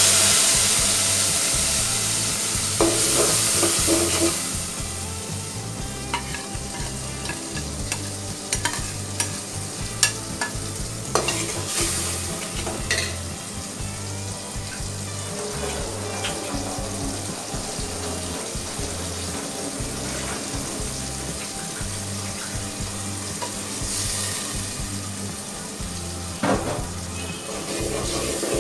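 Watery spice paste frying in hot oil in an aluminium pot, loudest in the first few seconds and settling into a steady sizzle. A steel spoon stirs it, clicking now and then against the pot.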